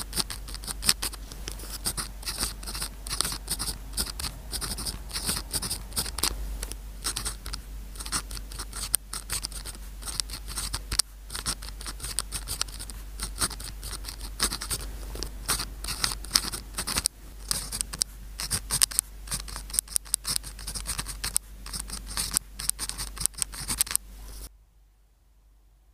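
Pen nib scratching across paper in quick, uneven handwriting strokes, stopping abruptly near the end.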